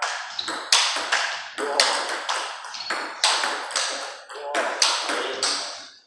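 Table tennis balls clicking off rubber paddles and bouncing on the tables in fast rallies, sharp irregular clicks about two to three a second, each with a short echo in the hall.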